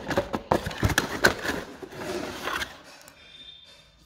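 Cardboard box flaps and packaging being handled: a quick run of knocks, scrapes and rustles as a hand digs into the compartments, dying down near the end.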